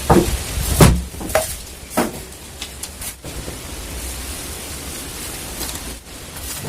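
A few short knocks and clatters of objects being handled, the loudest near the start and about a second in, over a steady hiss.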